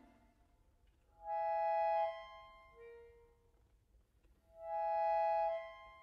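Chromatic button accordion playing two quiet, matching short phrases a few seconds apart, each a sustained note that steps up and then drops to a lower note, with silence between them.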